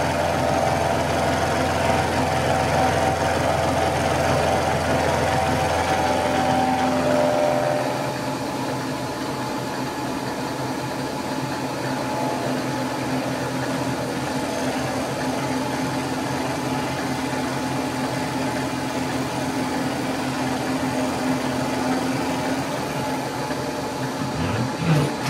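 Milling machine taking a cut across the top of a metal block in a vise: steady spindle and cutter noise with a low hum. About eight seconds in, the low hum drops away and it runs on a little quieter and steady.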